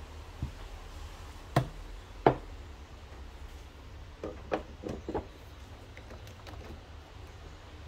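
Handling an espresso portafilter: two sharp knocks as it and the tamping tools are worked on the rubber tamping mat, then about two seconds later a quick run of metal clicks and clunks as the portafilter is seated and twisted into the Breville Barista Pro's group head.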